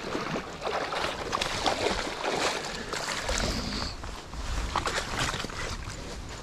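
Hooked musky thrashing at the surface beside the boat, a run of irregular water splashes. A low wind rumble on the microphone comes in about halfway through.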